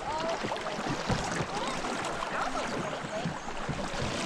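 River water gurgling and trickling around a boat: a steady watery hiss with many small bubbling blips.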